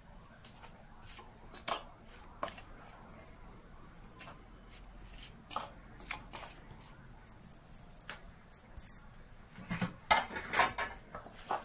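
Stainless steel mixing bowl being worked by hand as dry cornflour and spice powder are mixed: scattered light clinks and taps against the metal, with a louder cluster of knocks about ten seconds in.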